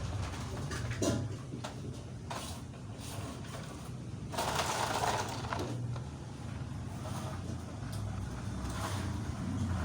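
A small motor running with a steady low hum, like a toy truck's, with a few sharp clicks and a louder scraping rush a little past the middle.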